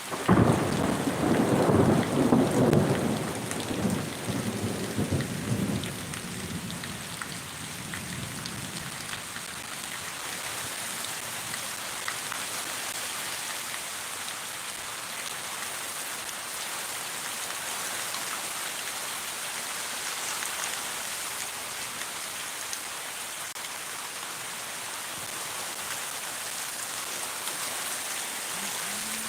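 A thunderclap rumbling loudly and dying away over about eight seconds, followed by steady rain falling.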